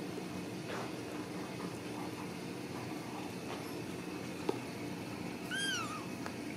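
A Ragdoll cat gives one short, high meow that rises and then falls, about five and a half seconds in, over a steady low hum. A single sharp click comes just before it.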